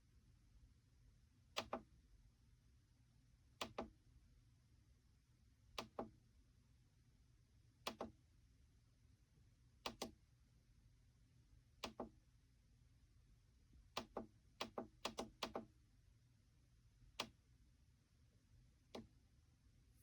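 Near silence with a low hum, broken by short sharp clicks about every two seconds and a quick run of several clicks around fifteen seconds in.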